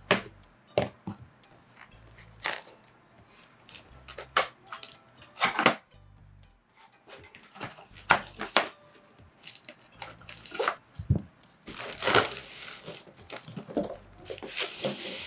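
Cardboard gift box being unpacked by hand: a blade scraping through a paper seal sticker, then cardboard flaps tearing, scraping and knocking open in a series of sharp clicks and short rustles. Near the end a longer scraping rustle as a foam case slides out of the cardboard.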